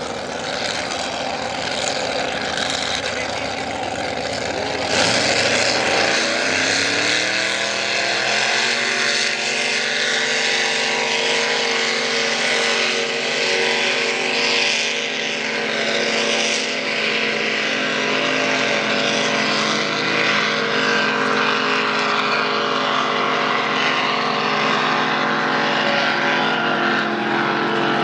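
Race boats' engines opening up at full throttle: a sudden jump in noise about five seconds in, their pitch climbing for a few seconds, then held at a steady high-revving drone as the boats run flat out, dropping slightly near the end.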